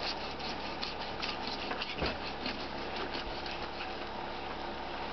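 Fillet knife cutting through a large walleye, with a run of small irregular crackling clicks as the blade works along the backbone and ribs, and one duller thump about two seconds in.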